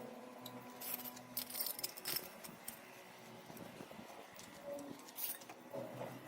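Scattered light metallic clinks and taps from steel parts and hand tools being handled, a few sharp ones close together about a second to two seconds in and another near the five-second mark.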